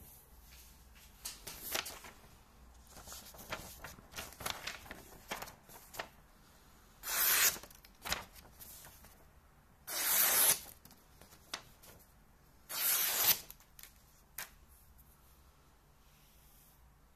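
Tanto knife blade slicing through a sheet of paper: three cuts about three seconds apart, each a short hiss of about half a second, with quieter paper rustling before them.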